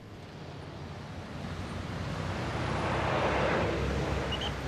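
City street traffic: a car passing close by, its noise swelling to a peak about three seconds in and then easing off.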